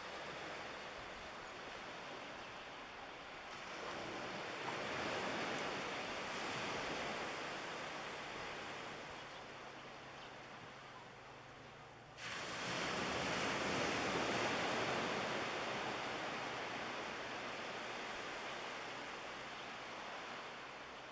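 Wind and small waves at the shoreline: an even hiss that swells about four seconds in and jumps up suddenly about twelve seconds in.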